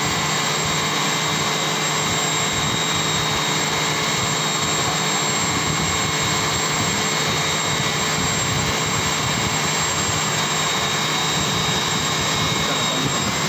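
Steady machinery noise: an unchanging drone with a thin high whine running through it.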